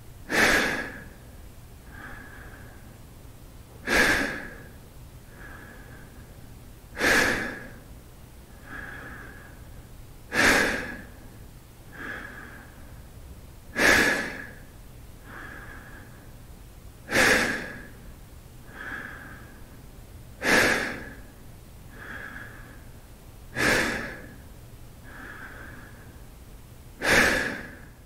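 A man breathing deeply and slowly in a steady rhythm: a loud breath about every three and a half seconds, each followed by a softer one, nine cycles in all.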